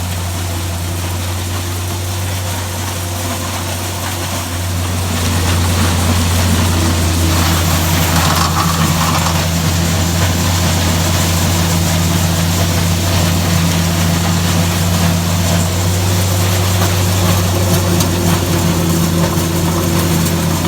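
Tractor engine running steadily while it drives a New Holland 354 grinder-mixer grinding ear corn; the sound gets louder about five seconds in and then holds.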